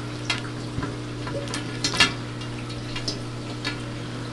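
Scattered light plastic clicks and taps from hands undoing the Aqualifter pump's plastic holder clip, the loudest about two seconds in, over a steady hum.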